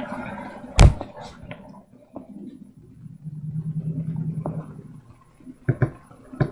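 Handling of small plastic toys and surprise eggs: a sharp knock a little under a second in, then scattered light clicks and taps, with a low hum lasting a couple of seconds in the middle.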